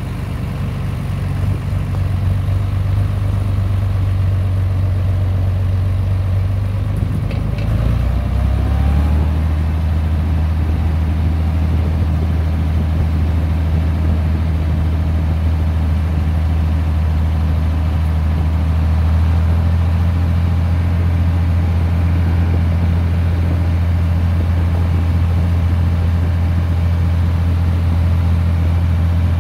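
John Deere 3130 tractor's diesel engine running steadily as the tractor is driven along. The engine note shifts lower about eight seconds in, then holds steady.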